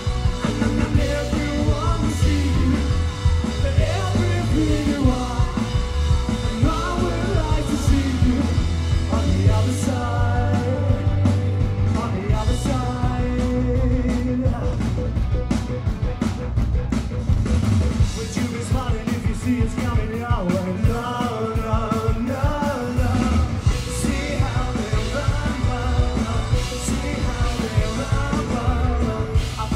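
Live rock band playing: electric guitars and drums with voices singing into microphones.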